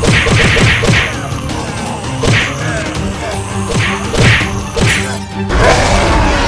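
Dubbed fight sound effects: about seven quick whacking hits with swishes, over action music, ending in a louder crash with a low boom near the end.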